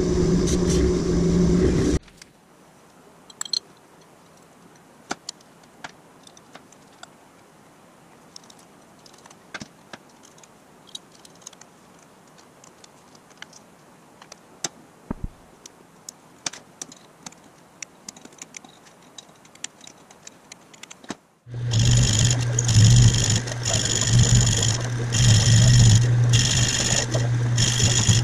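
A bench grinder fitted with a cloth buffing wheel runs steadily, then cuts off about two seconds in. Faint scattered clicks and handling noise follow. Near the end a metal lathe running with a steady hum comes in suddenly.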